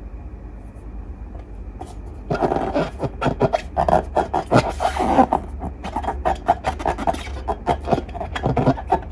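Slime being worked by hand, giving a dense run of sticky clicks and crackles that starts about two seconds in.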